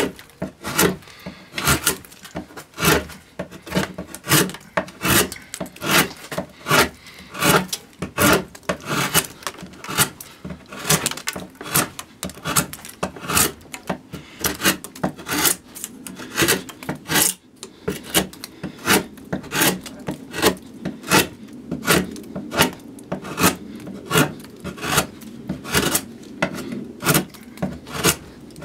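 Hand carving gouge cutting into a spruce cello top in short, repeated strokes, about two a second, each a crisp scrape as a shaving lifts from the wood; the top is being roughed out to its arching.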